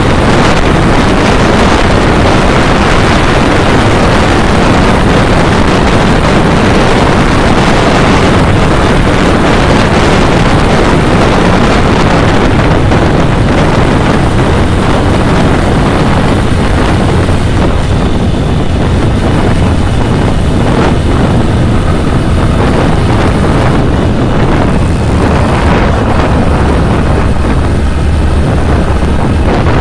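Loud, steady wind rush and road noise from riding a motorcycle, with the engine running underneath. In the second half the engine's low hum comes through more plainly.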